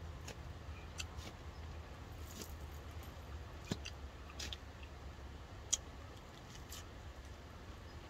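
A fork clicking and scraping in a plastic salad container while the salad is picked up and eaten, about eight separate sharp clicks, with soft chewing. A low steady hum runs underneath.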